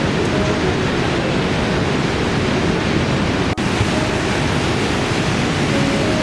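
Steady rush of falling and whitewater water, a waterfall and a creek tumbling over granite boulders; the sound briefly drops out just past halfway.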